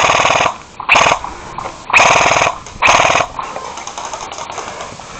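Airsoft rifle firing on full auto in four short bursts about a second apart, each a fast, even run of shots lasting about half a second.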